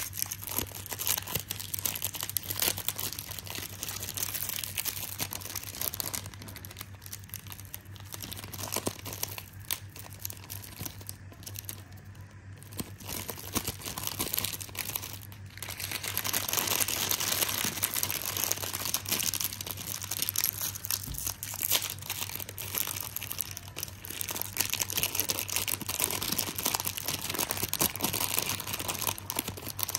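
Plastic and foil snack wrappers crinkling and tearing as they are opened and handled, louder from about halfway through.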